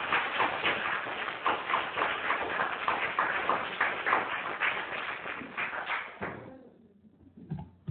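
Audience applauding, many separate claps, dying away about six seconds in. A brief knock comes near the end.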